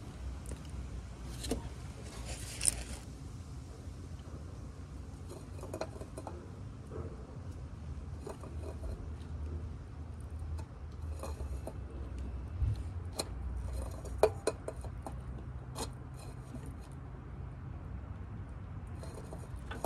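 Scattered metal clicks and scrapes of a plier-type oil filter wrench gripping and turning a new spin-on oil filter as it is tightened past hand-tight. The sharpest clicks come about three seconds in and about fourteen seconds in, over a low steady hum.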